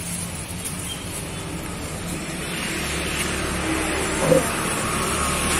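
A motor vehicle passes on the street close by. Its engine hum and tyre noise swell about halfway through, with a single short knock a little later.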